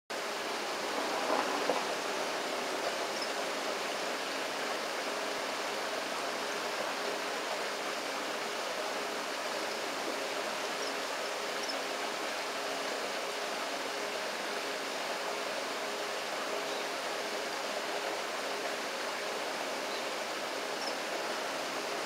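Steady rushing of flowing river water, an even hiss-like wash with no distinct events.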